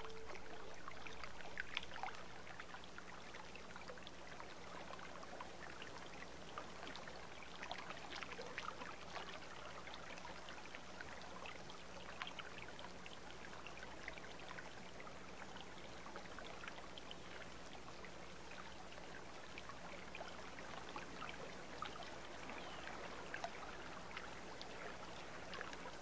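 Mountain stream running steadily, with many small splashes and trickles.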